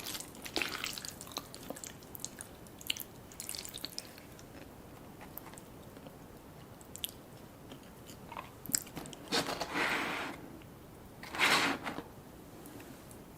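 Close-up eating sounds: chewing and biting with small crunches and clicks, then two longer, louder rushes of noise about two-thirds of the way in and near the end.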